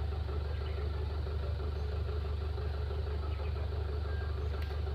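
Excavator's diesel engine running steadily at an even pitch, with a brief click near the end.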